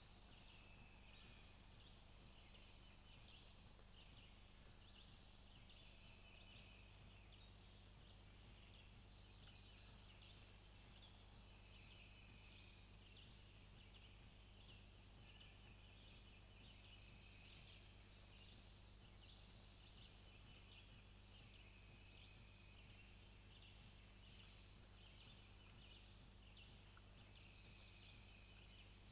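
Near silence in an open hardwood forest: faint, high-pitched chirping from distant wild creatures, in short bouts every several seconds, over a steady low hum.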